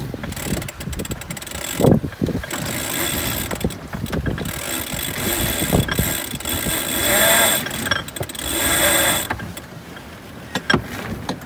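Wind buffeting the microphone and water rushing along the hull of a sailboat under way, surging louder twice, with a few short knocks near the end.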